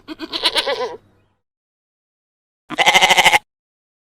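Goat bleating twice: a wavering bleat of about a second at the start, then a shorter, quavering bleat near the end.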